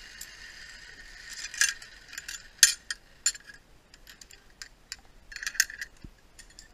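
Metal zipline hardware clicking and clinking as carabiners and the trolley are handled and unclipped, in irregular sharp clicks with a cluster near the end. A steady hiss fades out about a second and a half in.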